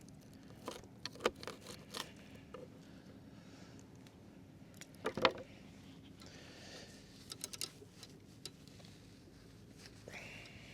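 Scattered light clicks and knocks of gear being handled in a boat, with one louder knock about five seconds in, over a faint steady hum.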